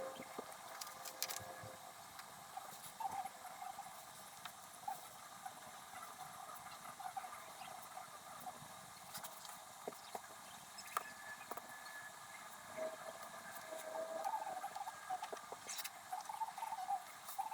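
Pen scratching across paper, sped up so that the strokes come as faint, high, chattering scratches with scattered small ticks.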